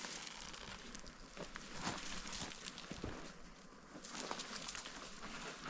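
Scuffing and rustling steps of someone climbing down a rocky slope, with scattered small knocks.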